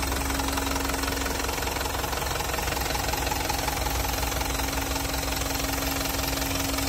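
Hino Dutro 136 HDX's four-cylinder common-rail turbo-diesel idling steadily, heard close up in the open engine bay, with a steady hum under the usual diesel clatter. Its running sound is soft and smooth, which the owner puts down to smoother combustion in the Euro 4 common-rail engine.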